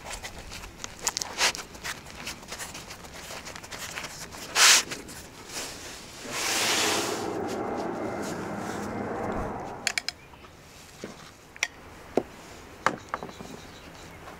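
Thin lavash flatbread rustling and crinkling as hands fold and roll it around shawarma filling, with one short, loud crackle partway through. A steady rush of noise lasts a few seconds in the middle, then light clicks and scrapes of a spoon spreading sauce on a fresh sheet of lavash.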